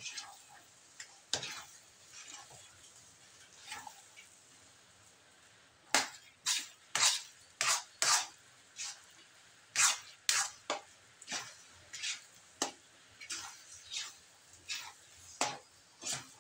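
A spatula stirring and scraping thick, sticky biko (glutinous rice cooked down in coconut milk and sugar) around a metal wok, in quick, irregular strokes. The strokes are sparse and soft for the first few seconds, then come as a run of sharper, louder scrapes from about six seconds in.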